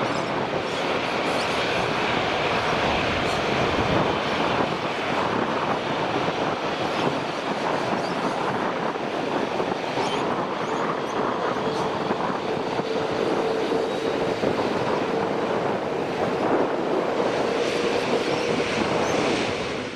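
Airbus A380's four Rolls-Royce Trent 900 turbofans at takeoff power as the jet rolls down the runway, a steady roar. A steady whining tone joins the roar a little past halfway through.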